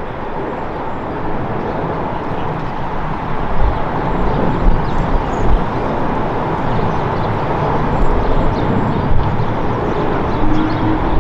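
Airbus A330-300 airliner's twin General Electric CF6-80E1 turbofans on approach with landing gear down: a steady jet rush with a faint steady tone, and uneven low rumbling underneath.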